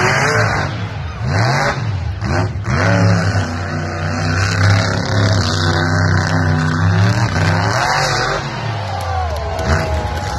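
Monster truck engine revving hard, its pitch climbing and falling again and again as the throttle is worked on and off.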